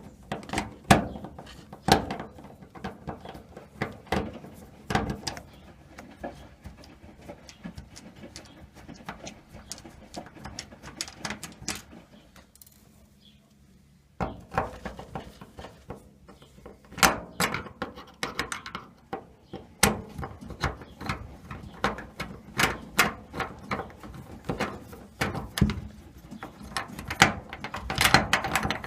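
Scattered clicks, knocks and light rattles of small metal parts and tools being handled during the dryer door hinge repair, with a short quiet spell near the middle.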